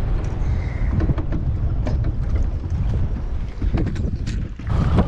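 Wind buffeting the microphone in a heavy low rumble, with scattered light clicks and knocks; it drops briefly about four and a half seconds in, then gusts back louder.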